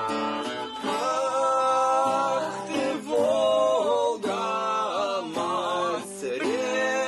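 A man singing a song in long held notes, accompanied by a strummed acoustic guitar.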